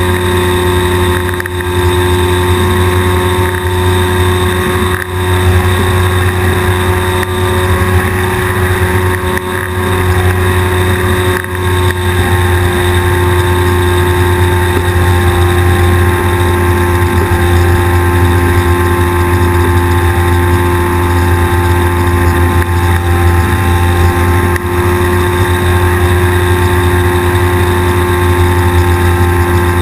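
Weight-shift microlight trike's engine and pusher propeller running steadily in flight, a loud, constant drone with a few brief dips in level.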